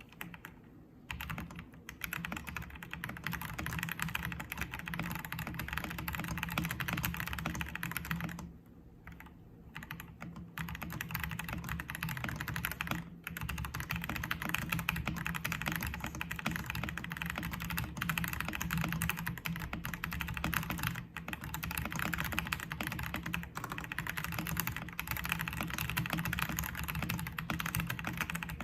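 Continuous fast typing on an XVX S-K80 mechanical keyboard, a dense clatter of key clicks that breaks off for about two seconds a third of the way through, then resumes.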